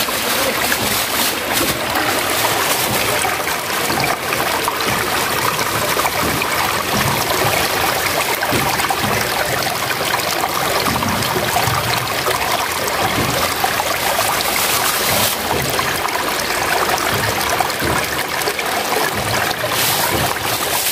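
Shallow stream running steadily over rocks, a continuous trickling rush of water.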